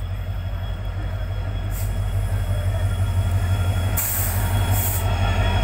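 Passenger train's locomotive rolling slowly into the station, a steady low rumble that grows gradually louder as it nears, with short high hisses about four and five seconds in.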